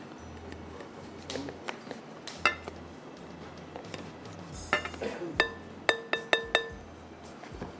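Whipped cream being scooped from a plastic tub into a glass bowl with a spatula: scattered clinks against the glass, then a quick run of about five ringing taps on the bowl a little past halfway.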